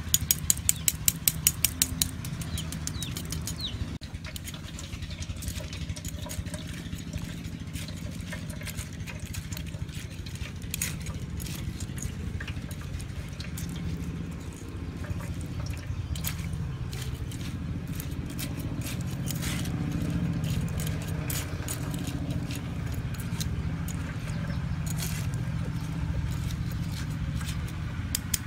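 A metal ladle taps quickly against a wire-mesh sieve about a dozen times, then scrapes and clicks as crab pieces are pressed and strained through it into an aluminium bowl. A steady low engine hum runs underneath.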